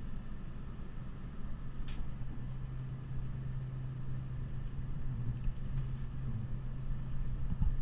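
Steady low hum of a refrigeration unit in cold storage, with a light click about two seconds in from egg cartons being handled.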